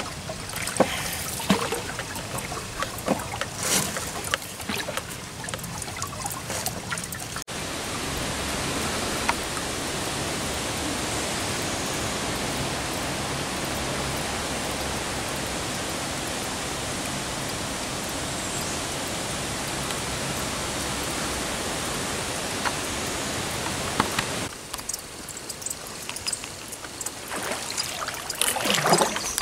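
Canoe paddling, a wooden paddle dipping and stroking with irregular knocks and splashes. About seven seconds in it cuts abruptly to a steady, even hiss lasting some seventeen seconds, and near the end a quieter stretch with a few light knocks.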